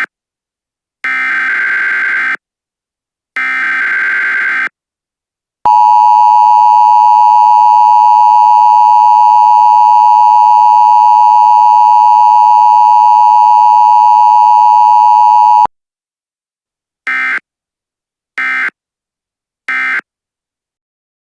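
Emergency Alert System signal: the last two of three buzzy, chirping data bursts of the header, then a loud, steady attention tone held for about ten seconds and cut off abruptly, followed near the end by three short data bursts like an end-of-message code.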